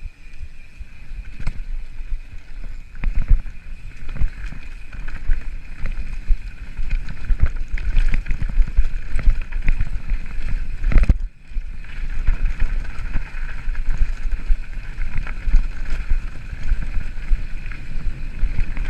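Wind buffeting a helmet-mounted camera's microphone, over the rumble, rattle and knocks of a mountain bike riding fast on a rough, rocky track. There is a brief gap in the sound about eleven seconds in.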